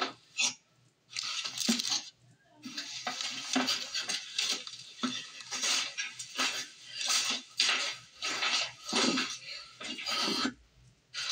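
Footsteps crunching and clattering over debris and broken glass, about one or two a second, with short pauses.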